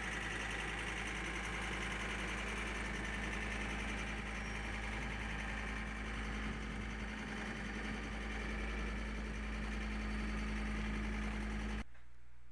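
John Deere 332 skid steer's diesel engine running steadily, a sign of the machine's great running condition. The sound cuts off sharply near the end.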